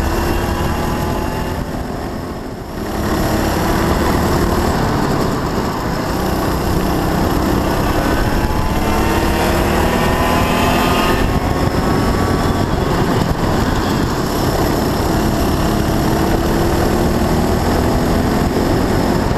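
Onboard sound of a Honda Cadet kart's single-cylinder four-stroke engine at racing speed. Its pitch and level drop briefly about two seconds in as it slows for a corner, then it climbs steadily again in long rising sweeps along the straights.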